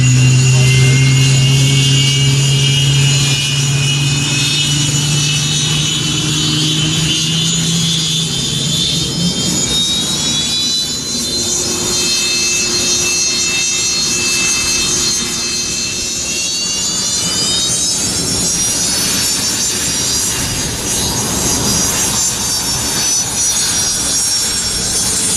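Antonov An-178's turbofan engines whining at the ground, the whine rising in pitch over the first several seconds and again about eighteen seconds in as the engines spool up. A strong low hum underneath fades out about nine seconds in.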